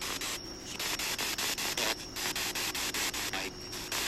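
SB7 spirit box sweeping through radio frequencies: a steady hiss of static chopped about five times a second, dropping out briefly three times.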